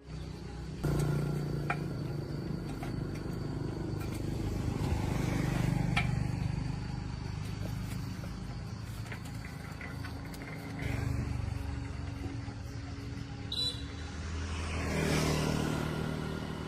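Road vehicle engine running, with a low hum that swells louder and eases off a few times, and a few light ticks and knocks.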